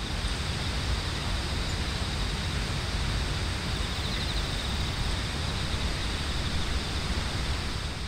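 Steady rushing outdoor noise of forest-road ambience, heaviest in the low range, with insects trilling faintly and a brief pulsing insect call about halfway through; it fades out near the end.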